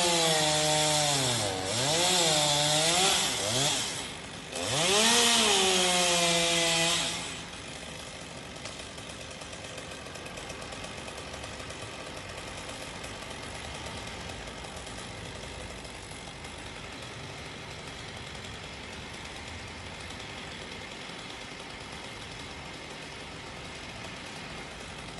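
Two-stroke chainsaw engine revving up and down, its pitch swinging repeatedly, for about seven seconds, with a short drop around four seconds in. Then a quieter, steady mechanical running noise takes over and continues.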